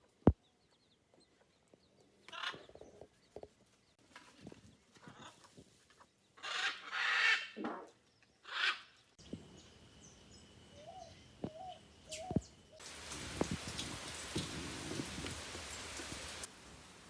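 Farmyard sounds: a series of separate bird calls, with fowl such as chickens among them, a sharp knock near the start, and a steady hiss for a few seconds near the end.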